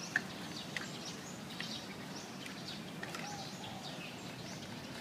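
Birds chirping, many short scattered calls, over a steady low hum of background noise, with one sharp click just after the start.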